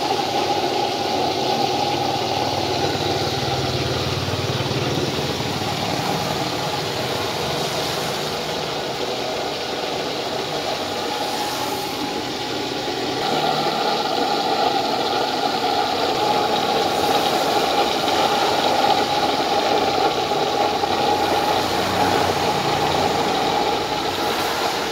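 Homemade blowerless used-oil stove burning a drip of waste oil and water, its flame making a steady rushing noise that grows a little louder about halfway through.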